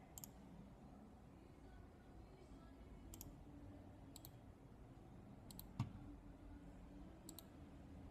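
Faint computer mouse button clicks, five short pairs of clicks spaced a second or more apart, with one dull low thump a little past the middle.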